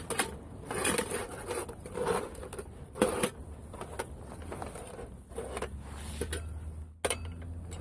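Small metal camping cookware being handled and set out on a ground mat: irregular clinks, knocks and rustling, over a low steady rumble.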